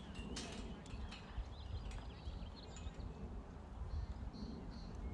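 Hoofbeats of a ridden Standardbred gelding, a dull uneven thudding with a low rumble, and a bird chirping faintly about four seconds in.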